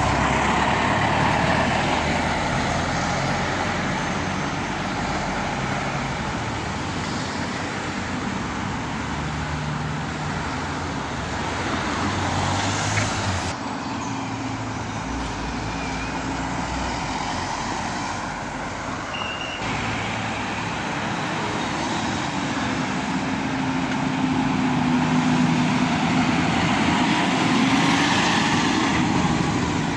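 A string of road vehicles driving past one after another, their engines running as they pull away: a classic ERF flatbed lorry at the start, then cars, and a John Deere tractor's diesel engine getting louder as it comes past near the end. Under the engines there is a steady hiss of road traffic, and the sound changes abruptly twice where the footage is cut.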